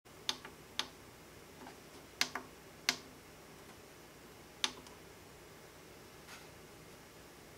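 Clicks of the Elecraft KPA1500 amplifier's front-panel push buttons being pressed, about seven sharp clicks at irregular intervals while stepping into the amplifier's setup menu.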